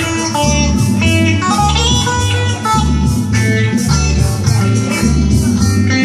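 Electric guitar playing an instrumental passage of live band music over a steady, repeating bass line.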